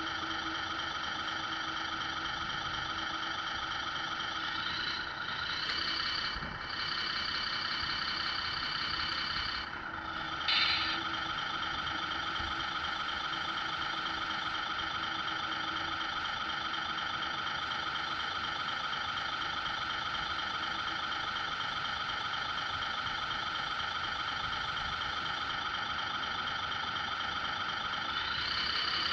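Scale RC semi-truck's electronic sound module playing a diesel truck engine at idle, a steady tone with many fixed pitches. The sound shifts briefly around five seconds in and again around ten seconds, with a short louder burst near the ten-second mark.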